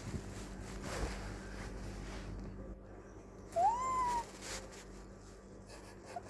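A Turkish Angora cat gives a single short meow past the middle, rising in pitch and then holding. There is a light knock about a second in.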